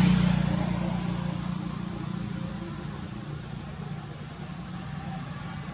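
A motorbike engine passing on the road, loudest at the start and fading over the first second or two, leaving a steady low engine hum.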